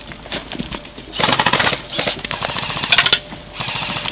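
Airsoft electric rifles firing on full auto: a burst of rapid clicking shots about a second in, then a short burst near the end.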